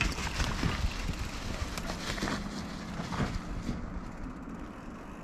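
Mountain bike rolling down a rough, steep trail: tyre noise over rock and loose ground with irregular rattles and knocks, and a low rumble of wind on the microphone.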